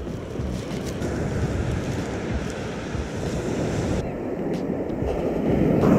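Ocean surf breaking on the beach, with wind buffeting the microphone: a steady, rough rush of noise.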